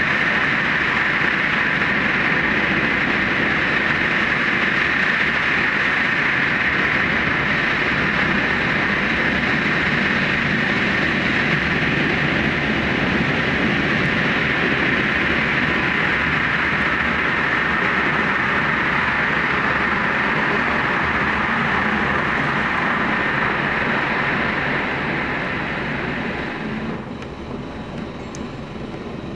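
Electric express train running at speed through the Seikan Tunnel: a loud, steady rushing rumble from the cab. Near the end it drops off and thins out as the train leaves the tunnel for open air.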